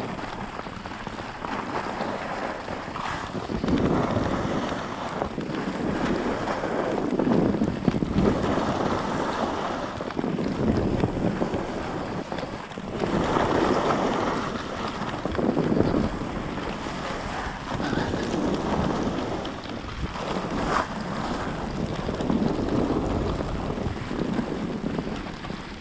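Skis sliding and scraping over snow, the noise swelling and fading every couple of seconds, with wind buffeting the microphone.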